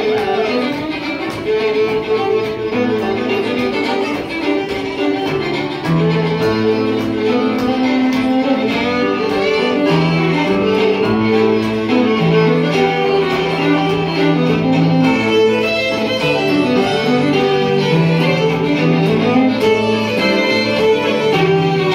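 Two fiddles playing a lively Irish traditional-style tune together over strummed acoustic guitar. About six seconds in, low bass notes join and the music grows louder and fuller.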